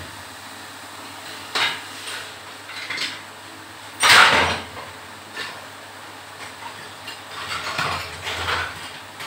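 Broken bricks and chunks of plaster clattering as demolition rubble is thrown and shifted by hand. The loudest crash comes about four seconds in, with a smaller clatter about a second and a half in and a run of lighter ones near the end.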